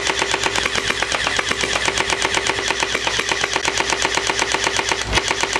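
Splatrball SRB 375M gel blaster firing on full auto: its electric gearbox whines under a rapid, evenly spaced rattle of shots, with a brief break near the end.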